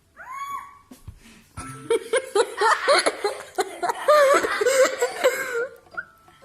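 Several seconds of high, wavering laughter and vocal exclamation, starting about two seconds in and breaking off near the end, after a short rising-then-falling vocal whoop about half a second in.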